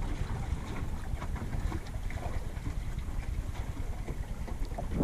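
Steady wind buffeting the microphone, over water washing along the hull of a small sailing dinghy running downwind.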